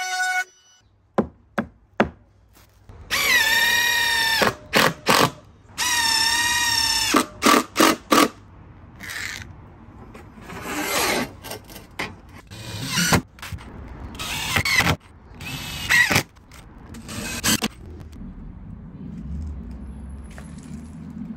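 Cordless power tools working OSB floor boards, run in a series of separate one-to-two-second bursts with a steady pitched whine, and shorter trigger taps between them. Near the end they give way to a quieter low background.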